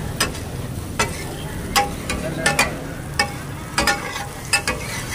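Steel spatulas clanking and scraping on a large flat tawa griddle as meat is chopped and stirred, about ten sharp ringing clacks at an uneven pace over a steady sizzle of frying.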